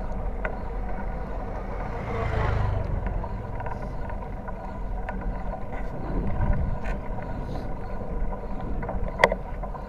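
Wind and road rumble on a camera mounted on a moving bicycle. The noise swells louder about two seconds in and again around six seconds, and there is one sharp click near the end.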